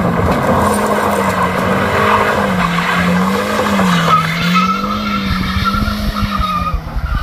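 Truck engine running hard at a steady pitch that wavers slowly up and down, with a thin high squeal coming in about four seconds in.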